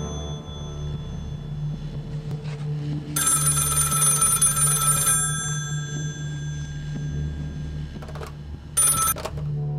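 Bell of a red rotary telephone ringing: one ring of about two seconds, then a short ring near the end that is cut off as the receiver is picked up. A low steady hum runs underneath.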